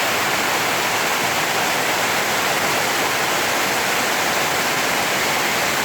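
Waterfall roaring: a steady, unbroken rush of water.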